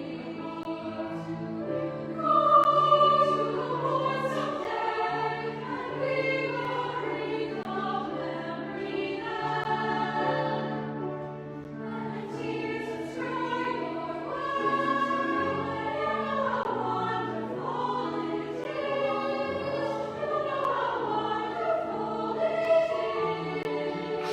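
A children's choir singing a slow choral song in parts, with instrumental accompaniment holding low sustained notes underneath.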